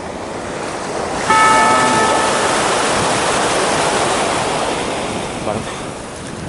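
Waves washing in, surging suddenly about a second in and slowly subsiding, with wind buffeting the microphone. A brief high whistling tone sounds as the surge begins.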